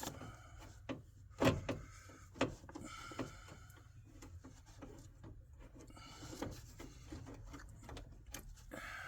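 Scattered clicks, knocks and light rubbing of metal parts as a Geo Metro's manual window regulator is worked loose inside the door shell, with the sharpest knock about a second and a half in.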